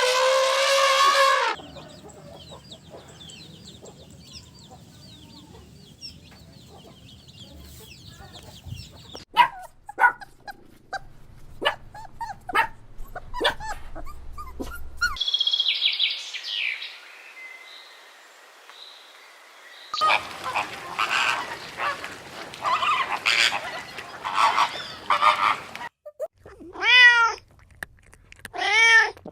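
A string of short recorded animal-sound clips, one after another, ending with a cat meowing twice.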